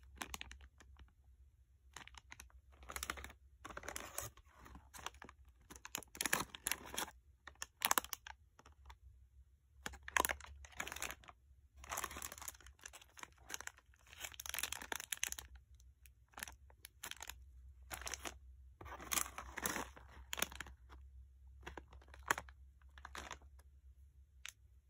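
Plastic snack wrappers crinkling and rustling in irregular bursts as sealed packets are picked up, handled and set down.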